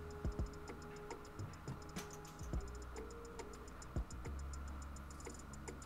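Soft background music with a quick, even ticking beat, under a few sharp light knocks and clinks of a metal spoon against a glass bowl and tart tin as peach filling is scraped out and spread; the loudest knock comes about four seconds in.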